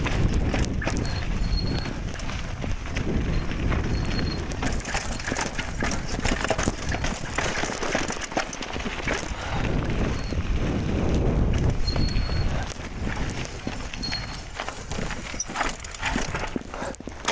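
Mountain bike riding down a rocky dirt singletrack: tyres crunching over dirt and stones and the bike rattling and knocking over bumps in an irregular clatter, with wind rumbling on the phone's microphone. A few short high squeaks come through now and then.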